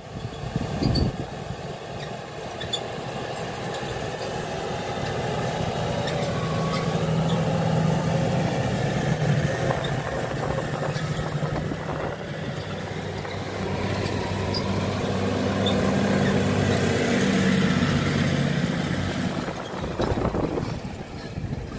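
New Holland tractor running steadily under load as it pulls a seedbed cultivator through dry soil, the engine drone swelling and easing a little.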